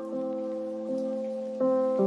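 Slow instrumental background music, with a new keyboard note entering about every three-quarters of a second over held notes.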